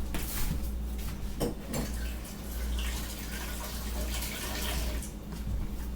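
Kitchen tap running water into a sink, a steady rush that thins out near the end.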